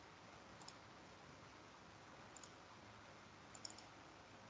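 Near silence: room tone with a few faint computer mouse clicks, about a second in, near the middle and a quick pair late on.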